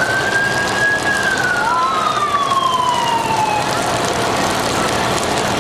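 Fire engine siren sounding one wail: it holds at its top pitch for about a second, then winds slowly down and stops a little over halfway through, over a steady hiss.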